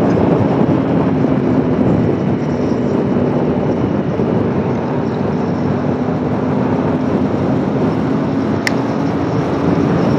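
Aprilia Tuono V4 1100's V4 engine running at a steady cruise under rushing wind noise. The engine eases a little through the middle and picks up again near the end. There is one sharp click nearly nine seconds in.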